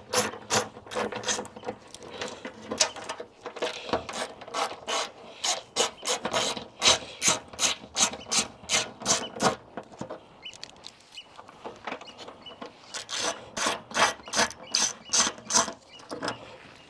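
Hand ratchet with a T30 Torx bit clicking steadily as it winds out already-slackened wing bolts. A run of quick clicks is followed by a pause about ten seconds in, then another run near the end.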